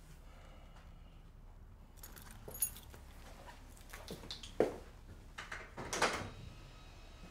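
Small handling noises: scattered light clicks and taps, the sharpest about halfway through. Near the end comes a short clatter of a door latch and a door as someone goes through it.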